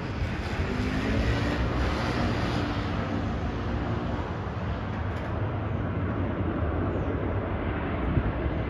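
Airbus A320 jet engines heard from a distance as it lands: a steady rumble with a faint tone that slowly falls over the first few seconds.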